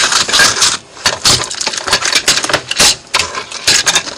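Cardboard mailer package being handled and opened close to the microphone: dense, irregular crackling, scraping and tapping of cardboard and packing tape.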